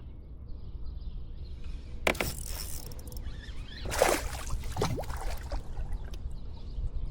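Steady low rumble of wind on the microphone, broken by a few short, sharp noises about two seconds and four seconds in.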